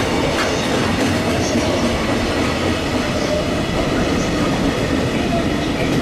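Koki container flatcars of a JR freight train rolling past, loaded with containers: a loud, steady rumble of steel wheels on rail.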